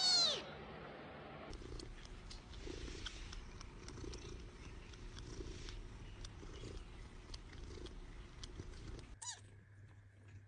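A cat meows once at the start, then a cat purrs steadily for several seconds, with a brief high cry near the end.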